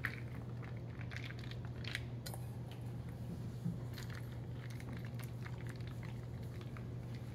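Shredded cheese sprinkled by hand over a layer of tortilla chips in a pan: a light, scattered patter and crackle of shreds landing and chips shifting, over a steady low hum.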